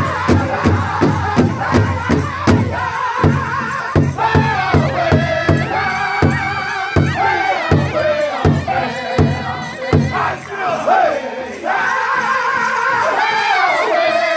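Powwow drum group: several men beating a large shared drum with drumsticks and singing together in high voices. The drumbeat is fast and even for the first few seconds, then grows sparser, and near the end the singing carries on louder with few drum strikes.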